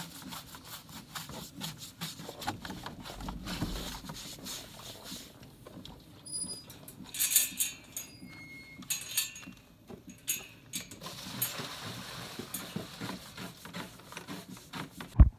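Irregular knocks, clatter and rustling from handling water buckets at metal horse-pen panels, with a few brief hissy bursts partway through and one sharp loud thump near the end.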